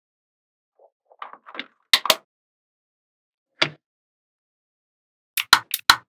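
Small magnetic balls clicking as they snap together: two sharp clicks about two seconds in, a single one near the middle, and a quick run of clicks near the end, with a quieter rustle about a second in.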